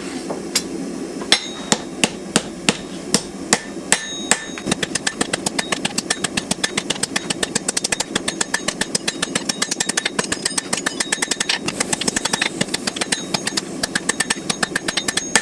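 Blacksmith's hand hammer striking hot steel on an anvil, forging the point of a large knife blade: spaced blows for the first four seconds or so, then a quick steady rhythm of about four blows a second, with a steady low hum underneath.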